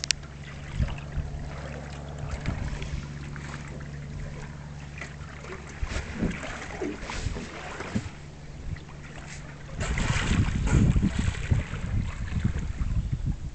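Boat engine idling with a steady low hum, under wind buffeting the microphone and some light water sounds; the wind gusts grow louder about ten seconds in.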